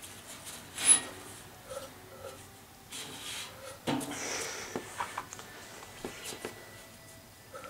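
Hand work on a furnace blower's sheet-metal housing and squirrel-cage wheel: scattered clicks, knocks and rubbing, with one sharp metallic clink about a second in and a duller thump near the middle.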